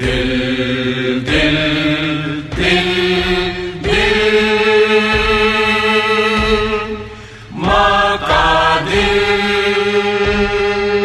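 Hindu devotional chant with vocals holding long, wavering notes that step to a new pitch every second or so, one note drawn out for about three seconds.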